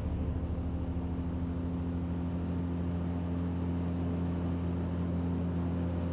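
Outboard motor running at a steady speed, a constant low hum with even overtones.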